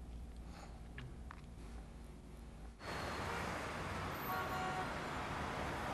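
Faint room tone with a few soft clicks, then about three seconds in a steady outdoor background noise cuts in suddenly, with a faint brief tone a little later.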